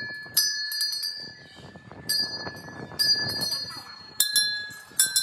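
Hanging brass temple bells struck by hand about five times, each strike ringing on until the next.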